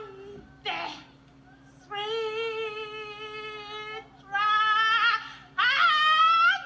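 A woman's voice letting out long, high-pitched wails. A short cry comes near the start, then three drawn-out wails: the first is held steady for about two seconds, and the last rises in pitch.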